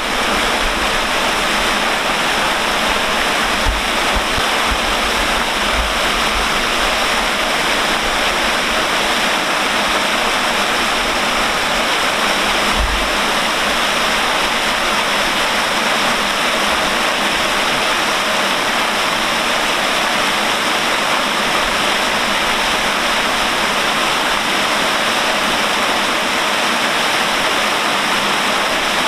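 Water falling in a wide curtain from an aqueduct bridge's trough into the canal below: a steady, unbroken splashing rush.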